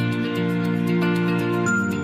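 Instrumental background music with long held notes; the chord changes near the end.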